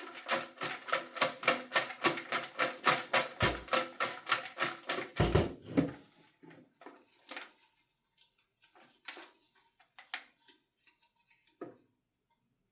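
Rapid, even clicking and rattling, about five strokes a second, for roughly six seconds, then stopping, followed by scattered light clicks and rustles: a raffle ticket drum being turned, then the winning ticket drawn by hand.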